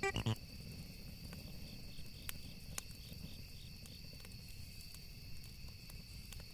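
Night ambience of crickets trilling steadily and faintly, with a low background rumble and a few soft clicks.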